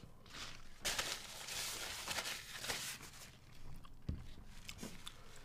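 A man breathing out hard through his mouth in one long hissing breath of about two seconds, then a soft click, as he copes with a mouth burning from hot sauce.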